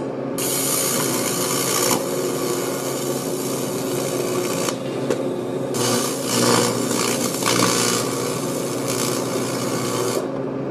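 AC TIG welding arc on thin aluminum can metal at low amperage: a steady buzzing hiss that starts just after the beginning, thins out for about a second midway, and cuts off near the end.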